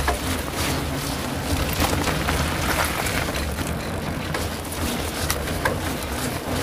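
Wind buffeting the microphone and tyres rolling fast over a wet dirt forest trail, with scattered knocks and rattles from the bumps.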